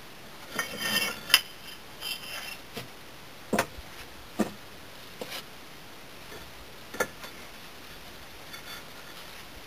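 Broken kiln firebrick pieces clinking and knocking against each other and the table as they are handled and set down by hand: a quick cluster of knocks in the first three seconds, then single knocks about once a second, the last about seven seconds in.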